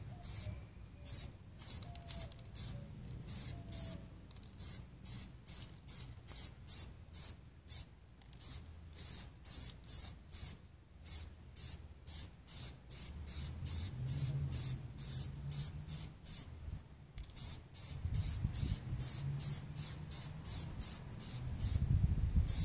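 Aerosol can of Plasti Dip rubber coating spraying in short hissing bursts, about two a second, with a few longer passes, laying down a light first coat.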